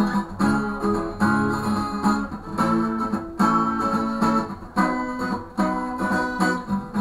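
Acoustic guitar strummed, a run of chords with short breaks between the strokes and no voice over it.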